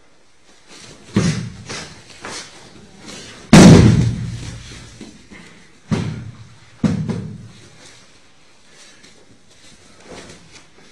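Bodies hitting the training mats during jiu-jitsu throws and breakfalls. There are four sharp thuds; the loudest comes about three and a half seconds in and leaves a long reverberation.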